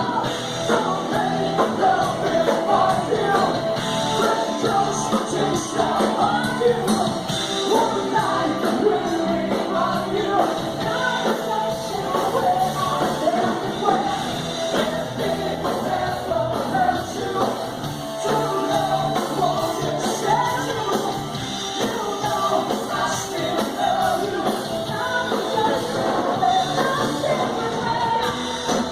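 A band playing a rock and roll song with a singer, the music steady and continuous.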